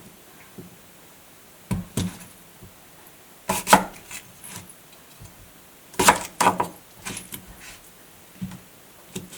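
Kitchen knife striking a wooden cutting board, about a dozen sharp knocks in irregular clusters.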